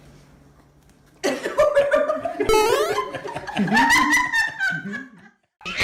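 Laughter with squealing rises in pitch, starting about a second in and lasting about four seconds, then breaking off abruptly.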